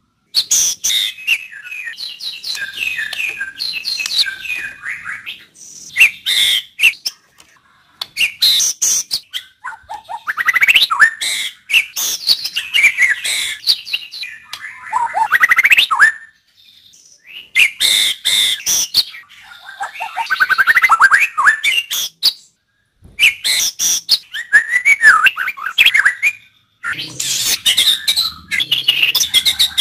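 White-rumped shama (murai batu) singing: loud phrases of varied whistles and sharp chattering notes, broken every few seconds by pauses of about a second.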